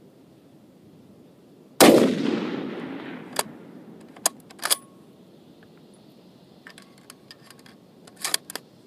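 A single shot from an M1903A4 bolt-action .30-06 rifle about two seconds in, its report echoing away over more than a second. It is followed by a series of sharp metallic clicks and clacks as the bolt is worked to eject the spent case and chamber the next round.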